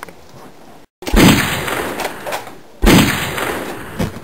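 Two loud booms, the first about a second in and the second about a second and a half later, each trailing off slowly.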